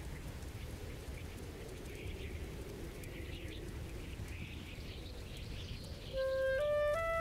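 Steady, low wintry wind ambience with faint high chirps over it. About six seconds in, music starts: a melody of clear held notes stepping up and down in pitch.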